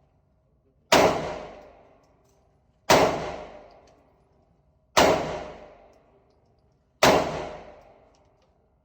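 Four shots from a 9mm carbine, fired one at a time about two seconds apart, each with a sharp crack that dies away over about a second.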